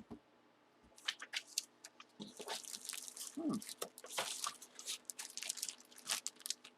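Plastic wrapping and cardboard packaging of a trading-card box crinkling and tearing as it is opened by hand: a dense run of irregular crackles and rustles that starts about a second in.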